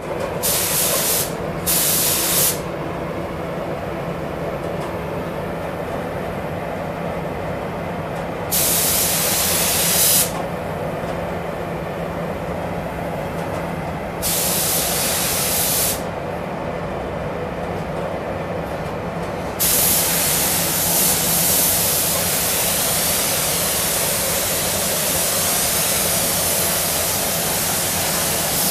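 Compressed-air paint spray gun hissing each time its trigger is pulled: a few short bursts near the start, longer bursts around nine and fifteen seconds in, then one unbroken pass for about the last nine seconds. Under it, the paint booth's ventilation runs with a steady hum.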